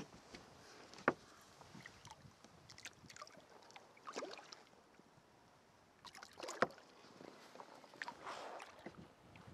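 Water splashing as a hooked northern pike thrashes at the surface beside the boat, in short bursts about four and six seconds in, with a sharp knock about a second in.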